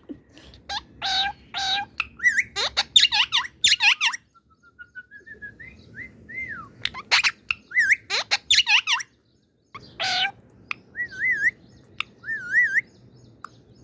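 Indian ringneck parrot calling: a run of sharp squawks, chirps and warbling whistles with quick rises and falls in pitch, in bursts with short pauses between them.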